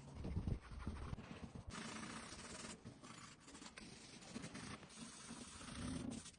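Drawing strokes scratching across paper as a sketch is made, in a run of strokes, the longest from about two to three seconds in, with light knocks of handling underneath.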